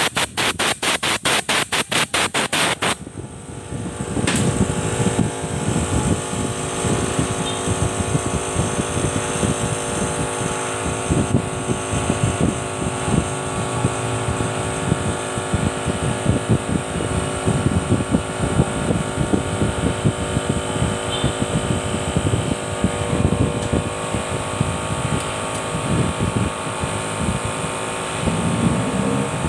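A fast, even rattle of about five strokes a second for the first three seconds, then a steady hum under irregular light knocks and clicks of hand tools and metal parts being handled on a scooter engine.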